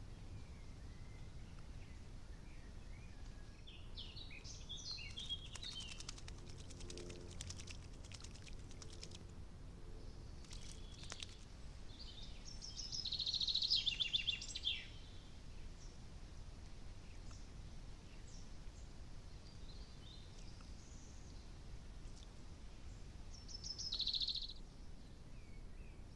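Songbirds singing in short phrases, the loudest a bright trill about halfway through and another shorter one near the end, over a steady low hiss. A quick run of clicks comes a few seconds in.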